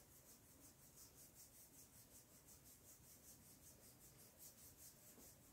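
Near silence, with faint rubbing of hands kneading oiled skin on the neck and shoulder.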